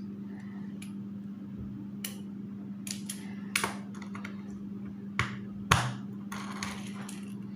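Plastic Lego pieces clicking and tapping as they are handled and pressed together: a scattering of separate sharp clicks over a steady low hum.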